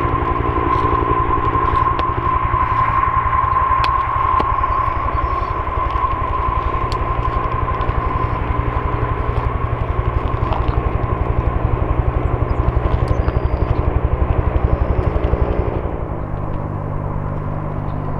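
Lockheed L-188 Electra's four Allison 501 turboprops running at high power as the airliner rolls away down the runway: a steady turbine whine over a fast-pulsing propeller drone, growing quieter near the end.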